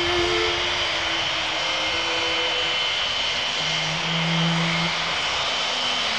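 Boeing 727's three Pratt & Whitney JT8D turbofans running at taxi power: a steady jet roar with a constant high-pitched whine.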